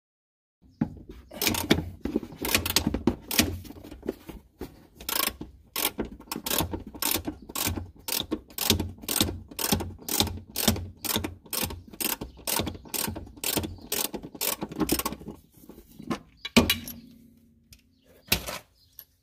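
Ratchet wrench clicking in quick back-and-forth strokes, about two a second, backing out a rear upper control arm bolt on a 1991 Honda Accord. The ratcheting stops after about sixteen seconds, and two loud knocks follow near the end.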